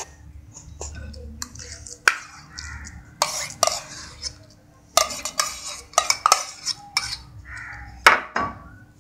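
Steel spoon scraping and clinking against a steel bowl as soft khoya is scooped out onto a steel plate, with a run of sharp metal clinks. The clinks come about two seconds in, three to four seconds in, five to six and a half seconds in, and twice around eight seconds in.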